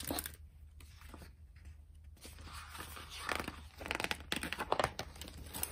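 Picture book pages being handled and turned: a series of short paper rustles and crinkles, busier in the second half.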